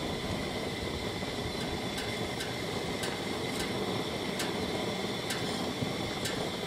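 Hot air balloon's propane burner firing, a steady rushing noise.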